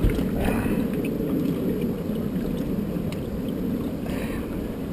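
Steady low rumble of wind and water around a small open fishing boat, with no clear engine tone.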